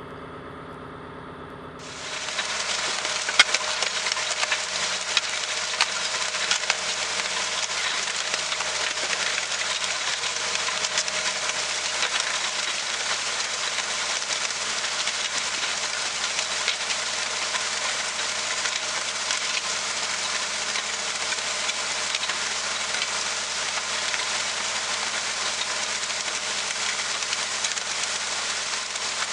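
An engine idling for about two seconds, then a sudden steady loud hiss with scattered crackles that drowns it out.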